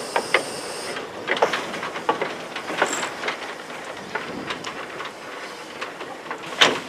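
Small metre-gauge steam tank locomotive moving slowly over station tracks. A hiss of steam cuts off about a second in, followed by irregular metallic clicks and clanks, the loudest one near the end.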